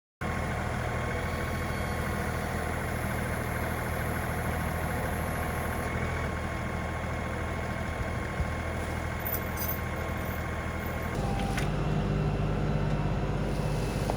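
Tractor engine running steadily. About eleven seconds in its note shifts and it grows a little louder, as if the engine takes more load or is throttled up.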